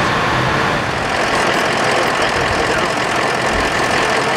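Vehicle engine idling steadily, with a constant even hum.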